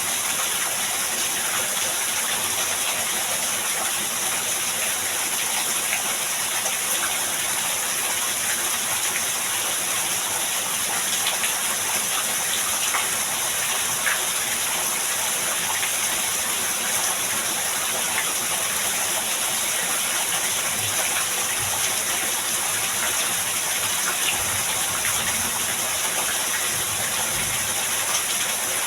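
Heavy rain falling in a steady downpour, with faint scattered ticks of drops.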